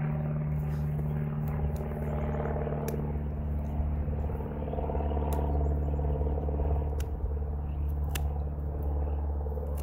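Hand pruning shears snipping small shoots at the base of a young cherry tree, several sharp clicks spread through, over a steady low hum.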